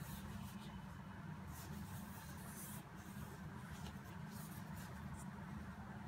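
A few soft rustles of cotton-gloved fingers rubbing and shifting on a matte-laminated rigid cardboard gift box, over a steady low hum.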